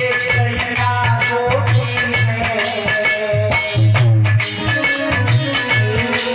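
Bhajan music: a gliding melody over a steady, repeating drum beat.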